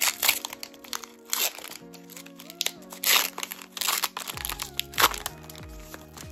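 Foil Pokémon booster-pack wrapper crinkling and tearing as the pack is ripped open and the cards slid out, in a run of loud crackles that stops about five seconds in.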